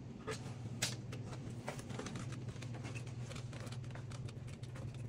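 An iguana's claws clicking and scraping on a woven seagrass food dish and carpet as it climbs onto the dish to its banana: small irregular taps with one sharper click about a second in, over a steady low hum.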